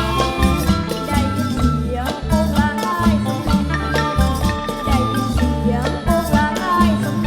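Isan pong lang folk ensemble playing, with gliding melody notes over a steady bass line and regular percussion.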